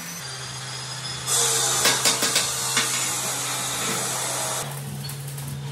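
Electric arc welding on steel tube: a crackling, sputtering hiss that starts about a second in and stops near the end. A few light metal clinks follow.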